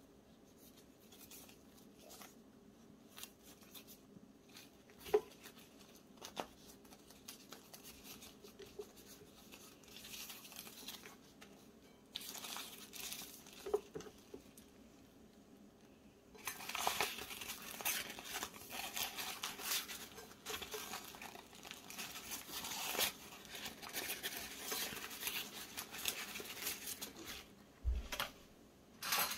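Bamboo leaf wrapping of a zongzi being untied and peeled open by hand. Scattered small clicks and rustles come first, then a long stretch of dense rustling and tearing of the leaves from a little past halfway, with a dull knock near the end.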